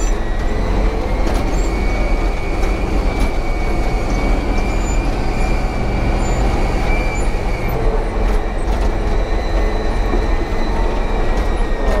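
Caterpillar D11 bulldozer working an earth bank, heard from inside its cab: the diesel engine runs steadily and the tracks clatter, with a thin high whine over it.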